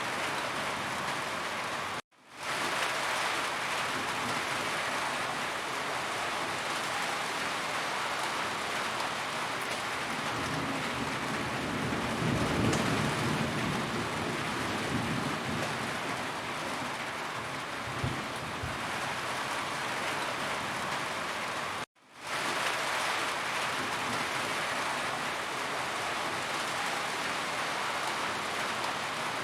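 Steady heavy rain falling on a roof, with a low rumble of distant thunder building and fading about ten to fourteen seconds in. The sound drops out to silence briefly twice, about two seconds in and again after about twenty-two seconds, then swells back.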